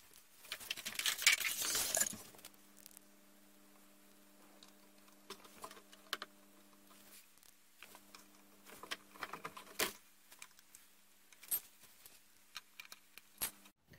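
Small metal screws clinking and rattling as they are handled and picked up off a wooden tabletop: a busy patch of clicks and rustling in the first two seconds, then scattered single clicks. A faint steady hum starts about two seconds in.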